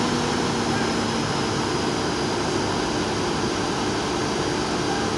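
Heavy diesel engines of trucks and a wheel loader running steadily, a continuous loud drone with a low engine hum.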